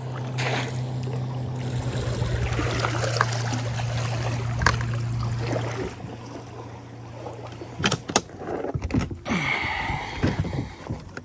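A steady low motor hum with water splashing and trickling; the hum stops about six seconds in, followed by a few knocks.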